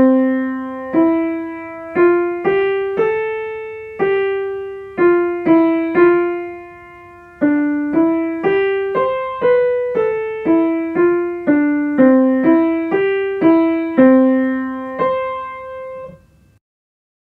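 Piano playing a short melody one note at a time, in C major within the octave from middle C, at a slow, even pulse of about one beat per second. It ends on a held note and stops about a second before the end.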